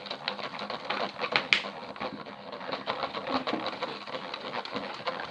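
Glue being stirred in a bowl, the utensil tapping and scraping against the bowl in rapid, irregular clicks.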